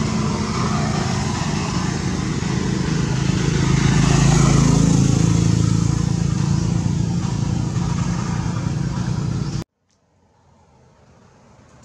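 A motor vehicle engine runs steadily with a low hum, swelling to its loudest about four to five seconds in and easing a little after. It cuts off abruptly near the end, leaving only a faint hiss.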